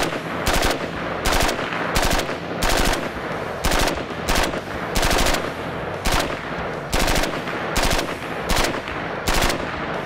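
HK-93 rifle in 5.56 firing single shots in steady succession, about thirteen over ten seconds at slightly uneven intervals of under a second. Each report is followed by echo that fills the gap before the next.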